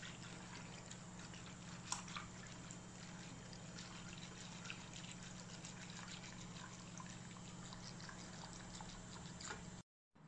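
Wire whisk stirring a thickening chocolate pudding mixture in a pot, a faint liquid swishing with small clicks of the whisk against the pan over a low steady hum. It stops abruptly near the end.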